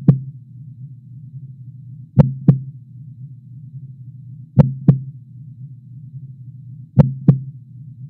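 Heartbeat sound effect: a slow double thump, lub-dub, about every two and a half seconds over a steady low hum.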